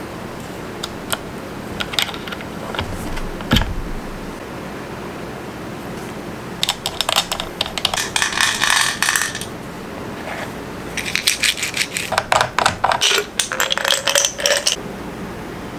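Brass cartridge cases clinking and rattling against each other as they are handled, in two bouts of rapid clicking a few seconds long. A few single clicks and knocks come before them.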